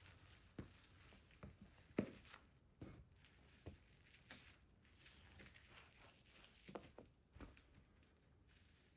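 Buffalo T24400 platform boots stepping and pressing down on mashed cheeseburgers and fries on a tile floor: a scatter of soft, irregular thumps, the loudest about two seconds in.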